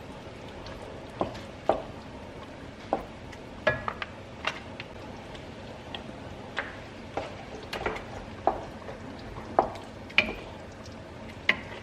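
A spoon clinking and scraping against a pan as a meat sauce of ground beef and hot dogs is stirred, with irregular sharp clinks about once a second over a steady low sizzle from the cooking sauce.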